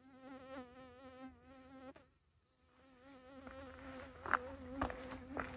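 A bee buzzing in flight close by, the buzz wavering in pitch; it breaks off for a moment about two seconds in and then comes back. A few footsteps on the dirt trail in the second half.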